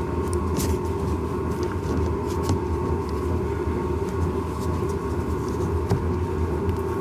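Steady low hum and rumble with a thin high tone over it, and scattered light clicks from plastic parts and wiring being handled.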